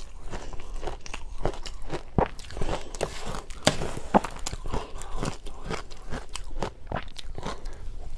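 Close-up crunching and chewing of a mouthful of powdery ice dusted with matcha powder: a dense run of quick, crisp crunches, irregular but unbroken.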